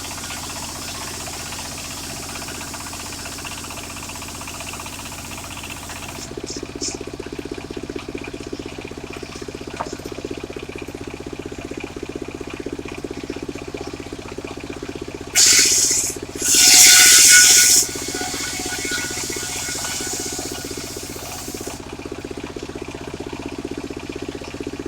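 Homemade circular sawmill running, its blade spinning free, with the drive's hum getting heavier about six seconds in. About two-thirds of the way through, the blade bites into sengon wood twice in quick succession, each a loud hissing cut of about a second.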